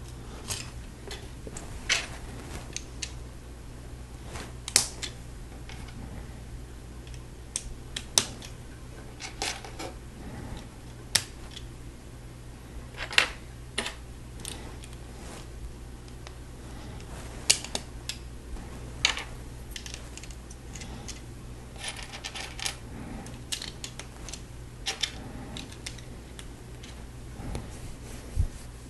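Small plastic Lego bricks clicking and clacking as pieces are picked from a pile and snapped onto a model, in irregular separate clicks, some much louder than others. A faint steady low hum runs underneath.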